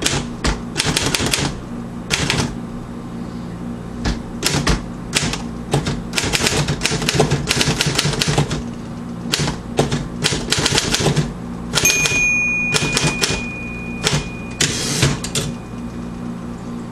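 Royal KMM manual typewriter being typed on: quick runs of key strikes in bursts, with short pauses between them.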